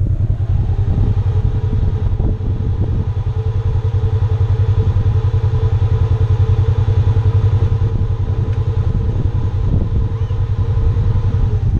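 Polaris RZR side-by-side's engine idling, a steady pulsing low rumble. A steady higher hum joins about a second in and stops near the end.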